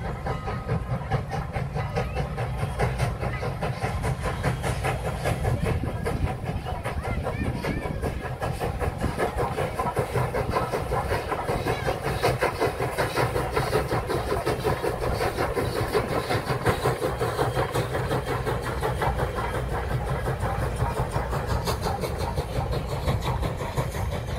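Strasburg Rail Road steam locomotive hauling a passenger train past, its exhaust chuffing in a quick, steady rhythm over a continuous low rumble of the train rolling on the rails.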